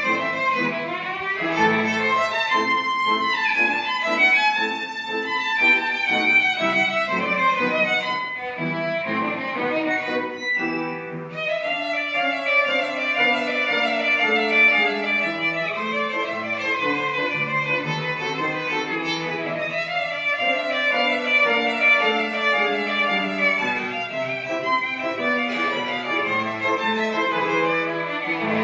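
Violin playing a melody, with lower accompanying notes sounding beneath it.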